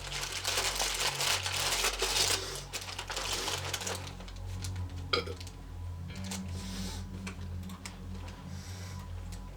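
Crinkling and rustling of a cereal box and its plastic bag being handled and opened: dense for the first few seconds, then scattered crackles, over quiet background music.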